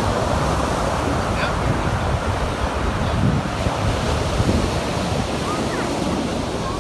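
Ocean surf breaking and washing up the shoreline, with wind buffeting the microphone.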